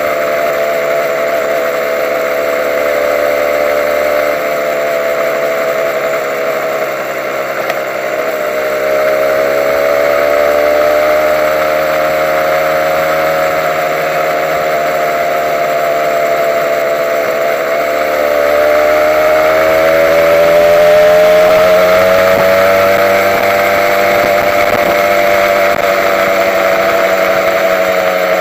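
Honda NSR150's two-stroke single-cylinder engine running under way, its note sagging and rising gently as the revs change, dipping twice and climbing to its loudest about two-thirds of the way in. A steady hiss runs underneath.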